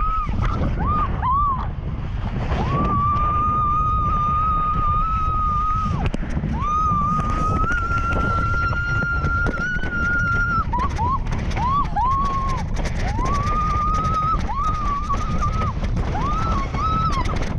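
A woman screaming: two long held screams of about four seconds each, then a string of shorter rising-and-falling cries in the second half, with wind rushing over the microphone.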